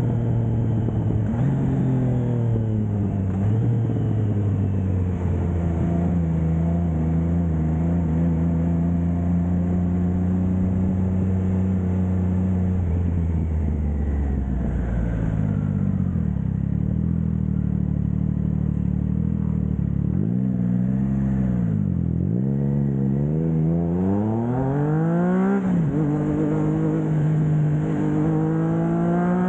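Triumph Trident 660's inline three-cylinder engine through a Blackwidow 200mm aftermarket exhaust, cruising at a steady pitch, then easing off to low revs about halfway. After two quick revs it pulls hard, its pitch climbing and dropping sharply at gear changes near the end.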